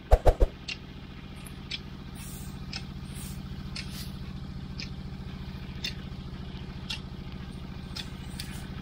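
An engine running steadily at a constant speed, a low even pulsing hum, with scattered sharp clicks over it and a few loud knocks right at the start.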